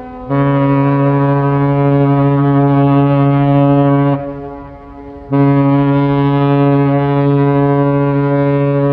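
Ship's horn sounding two long, deep blasts of about four seconds each, with a gap of about a second between them.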